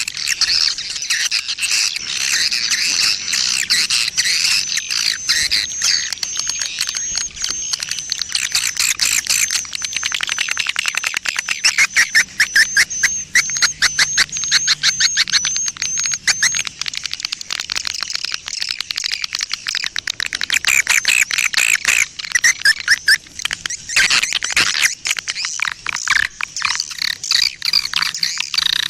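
Small birds chirping and calling densely and rapidly. A quick, regular run of short high notes repeats from a couple of seconds in until past the middle.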